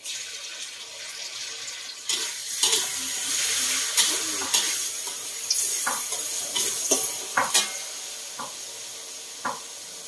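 Food sizzling in hot oil in a steel wok, with a metal spatula scraping and knocking against the wok as the food is stirred. The sizzle starts suddenly and grows louder about two seconds in; the scrapes and knocks come thick through the middle and thin out near the end.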